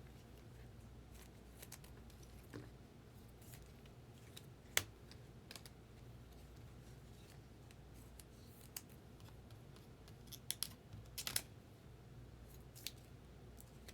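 Trading cards and plastic card sleeves being handled: scattered light clicks and rustles, the sharpest about five seconds in and a small cluster around eleven seconds, over a faint steady hum.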